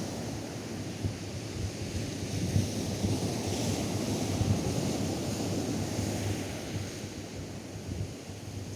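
Atlantic surf washing steadily onto a sandy beach, with wind buffeting the microphone as a gusty low rumble; the wash swells a little about four seconds in and eases slightly near the end.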